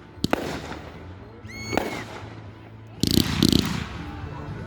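Fireworks display: a sharp bang, then a whistling firework rising in pitch and ending in a report. About three seconds in, a louder, dense spell of crackling bursts begins.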